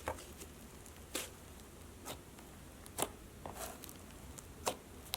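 Slime being played with by hand: about six soft clicks and pops, spaced roughly a second apart, as the slime is pressed and stretched.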